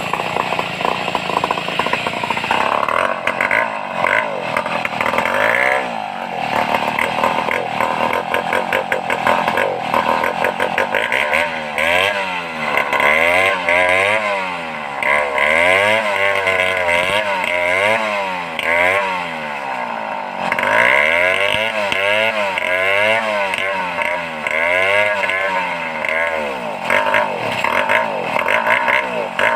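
Large two-stroke chainsaw, a home-assembled Stihl 070-type, running loudly; through the second half its pitch swings up and down about once a second as the throttle is worked.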